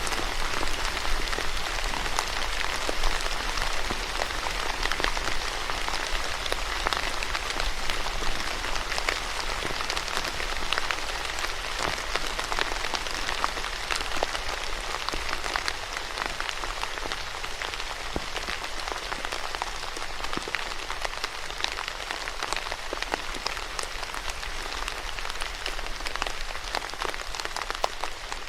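Steady rain falling on a surface: an even hiss with many individual drops pattering through it.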